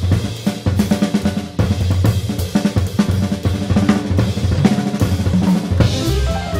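Straight-ahead jazz combo recording with the drum kit to the fore: snare, bass drum, hi-hat and cymbals played busily over bass and chords, with a cymbal wash near the end.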